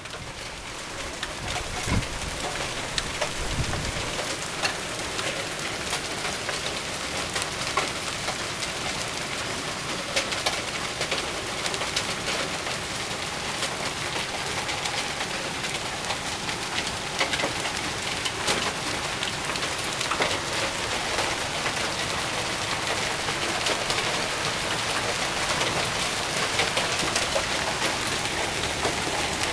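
Hail and heavy rain falling: a steady hiss of rain with many sharp clicks of hailstones striking the concrete sidewalk and the ground around it.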